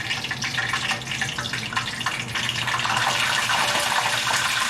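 Hot cooking oil sizzling with a dense, steady crackle over a low hum.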